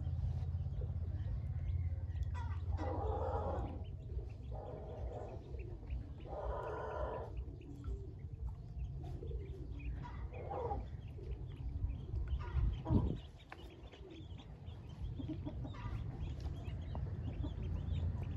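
Pekin ducklings peeping in small high chirps, with several louder bird calls of about a second each, over a steady low rumble.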